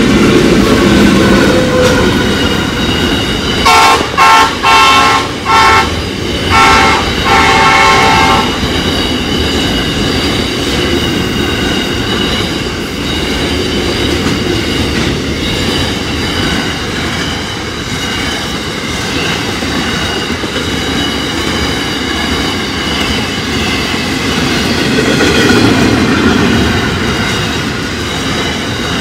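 NR class diesel-electric locomotive NR84 sounds its horn about four seconds in, in about five short blasts followed by one longer one. After that, a long string of container freight wagons rolls over the level crossing with a steady rumble and clickety-clack of wheels on rail joints.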